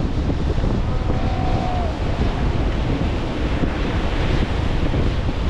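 Strong wind buffeting the microphone over the steady wash of ocean surf breaking on a beach.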